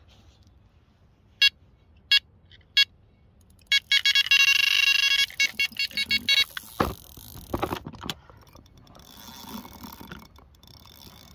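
Electronic carp bite alarm on a rod pod giving three single bleeps, then a fast unbroken string of bleeps: a run, a fish taking line off the rod. It is followed by a few knocks and rustling as the rod is handled.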